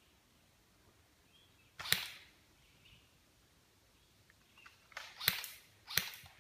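Airsoft guns firing single shots: one sharp crack about two seconds in, then three more in quick succession near the end.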